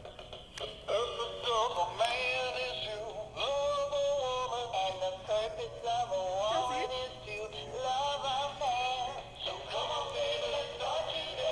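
Animated singing plush dog couple by Kids of America / Magic Power playing a recorded song with singing through its built-in speaker, starting about half a second in.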